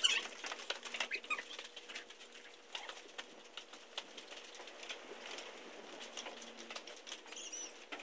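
Faint scattered clicks and rustles as horse tack is handled, with a few short bird chirps.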